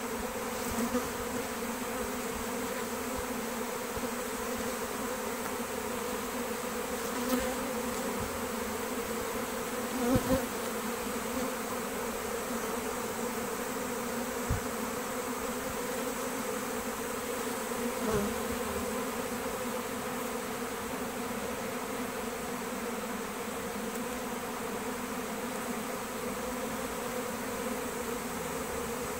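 A swarm of honey bees in flight, a dense, steady hum at one even pitch, with a few brief louder swells, the biggest about ten seconds in.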